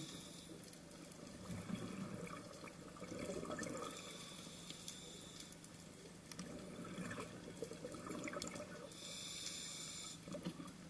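Scuba diver breathing through a regulator underwater. A hissing inhalation comes about every five seconds, about 4 s and 9 s in, and a bubbly exhalation follows between them, with scattered small clicks.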